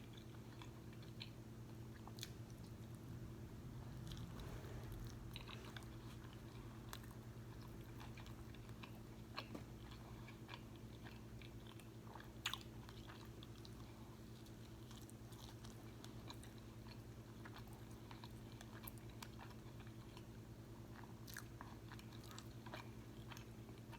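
Faint chewing and crunching of a crispy fried fish sandwich close to the microphone, with soft mouth clicks scattered throughout and one sharper crunch about halfway. A steady low hum runs underneath.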